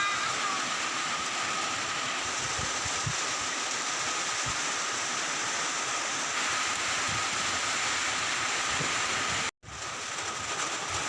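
Steady rain falling, a continuous even hiss, briefly cut off for a moment near the end.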